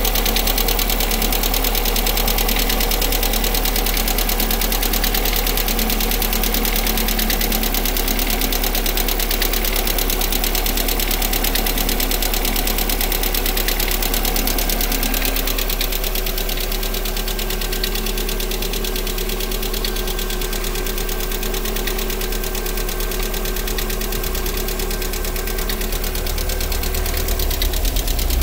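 Lada Priora petrol engine running at idle with a steady knock, a knock that shows up after the car has stood for a long time and that the owner links to the hydraulic valve lifters or the piston group. The engine note shifts about halfway through.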